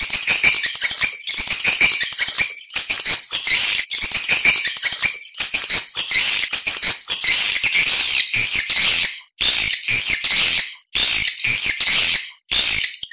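Swiftlet calls: dense, high-pitched rattling chatter and twittering, broken by a few short pauses in the second half. This is a swiftlet lure call, the kind played in swiftlet nesting houses to draw birds in to roost and nest.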